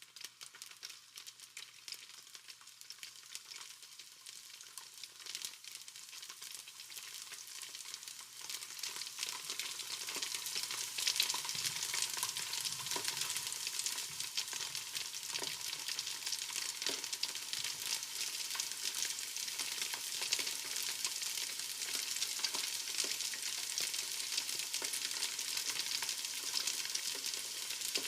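Food frying, a dense sizzle full of small crackles and pops that grows louder over the first ten seconds or so, then holds steady.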